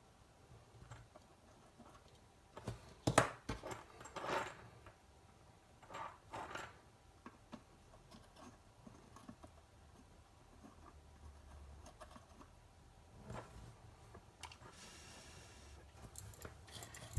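Scattered small clicks and knocks of tools and parts being handled on a workbench, a few close together about three to six seconds in and one more later, with a faint hiss near the end.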